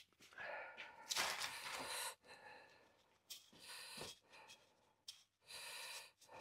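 Faint breathy noise in three short bursts, like a person breathing out or sighing.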